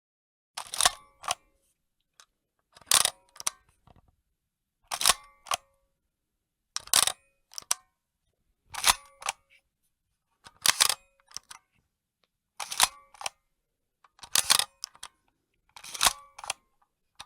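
Camera shutter clicks, repeated about every two seconds. Each is a quick double or triple click, nine in all.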